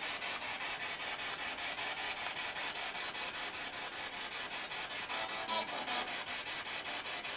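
Spirit box sweeping through radio stations: a steady hiss of radio static chopped into rapid, even pulses several times a second.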